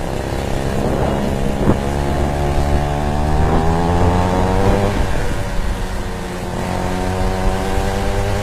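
Small gas engine of a stand-up scooter running under way, its pitch climbing for a few seconds as it speeds up, dropping about five seconds in as the throttle eases, then rising gently again.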